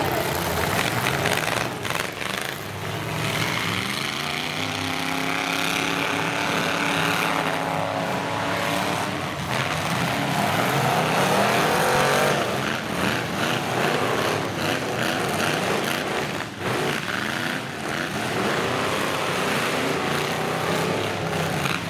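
Engines of several full-size pickup trucks revving and running under heavy load, their pitch rising and falling as the trucks ram and push one another in a demolition derby, with a few short thuds of impact.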